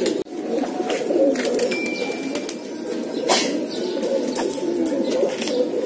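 A loft of domestic pigeons cooing together: a continuous chorus of overlapping low, warbling coos.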